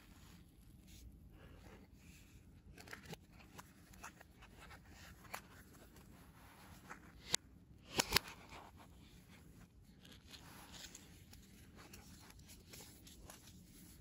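Cardboard packaging handled by gloved hands: faint rustling and sliding of the paper box and sleeve, with a few sharp taps about seven and eight seconds in.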